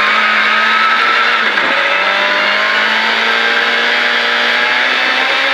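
Rally car engine heard from inside the cockpit, accelerating hard on gravel. About a second and a half in there is a brief break for an upshift into second gear, then the revs climb again.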